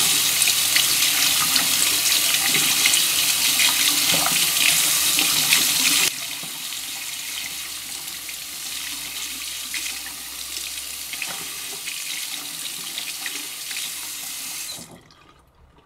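Tap water running into a bathroom sink as someone washes at it, with small splashes. About six seconds in it drops suddenly to a quieter, more distant sound, then fades out near the end.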